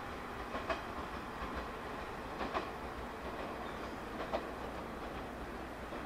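A JR 115-series electric train running away down the line over a steady rumble, its wheels clicking over rail joints in close pairs three times, about every two seconds.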